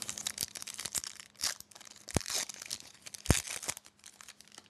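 Foil wrapper of a hockey card pack being torn open and crinkled, with irregular crackling and two sharp clicks about a second apart.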